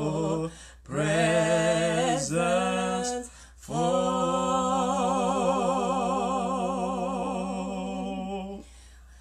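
Slow gospel worship song sung by a woman and a man, in three phrases of long held notes with vibrato. The last note is held for about five seconds and stops a little before the end.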